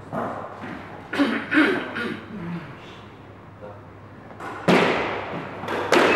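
Squash ball struck by racket and hitting the court walls: two sharp, echoing smacks near the end, after a few softer knocks and some faint voices.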